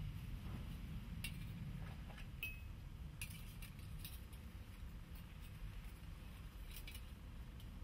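Several light metallic clinks, one with a brief ring, as a thin metal strip is handled against a steel anvil, over a low steady hum.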